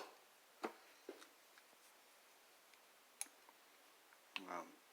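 A few sparse, sharp clicks of metal hand tools and wire belt lace being handled, over near silence, with a brief low vocal sound near the end.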